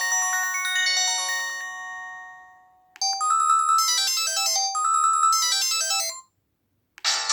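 Polyphonic ringtones from a Samsung SPH-A790's Yamaha SMAF sound chip. One melody fades out, a short new tune starts about three seconds in and plays its phrase twice before stopping, and another tune begins near the end.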